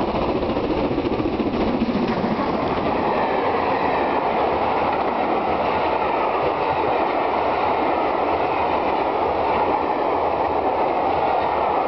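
Steam-hauled passenger train, LMS Princess Royal class 6201, passing close at speed: the locomotive goes by about a second in and a long rake of coaches rolls past in a steady, loud rumble of wheels on rail.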